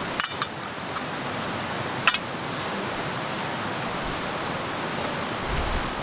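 Metal chopsticks clinking against stainless steel bowls and containers: a few sharp clinks in the first half-second and another about two seconds in, over a steady rushing background noise.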